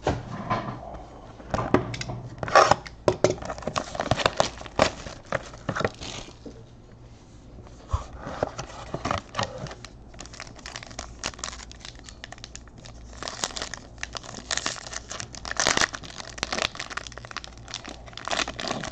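Foil-and-plastic card pack wrapper crinkling and being torn open by hand, in two busy stretches of dense crackling with a quieter spell of handling between them.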